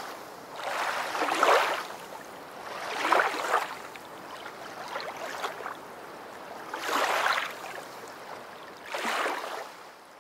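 Water washing in regular swells, one surge of rushing noise about every two seconds, like small waves lapping.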